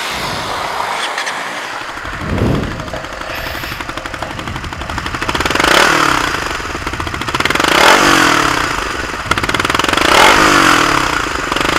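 Suzuki Raider 150 FI single-cylinder four-stroke engine idling through its stock exhaust, blipped once briefly and then revved up and down three times.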